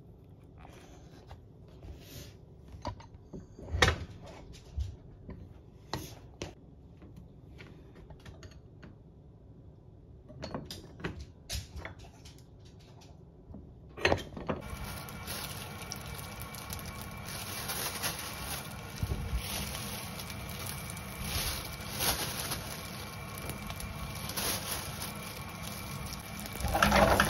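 Kitchen handling sounds: scattered soft knocks and taps as eggplants are handled on a wooden cutting board. From about halfway a steady hiss with a faint hum sets in, and near the end there is a louder rustling stretch.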